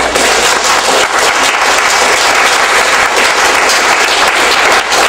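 An audience applauding: steady clapping from a seated crowd.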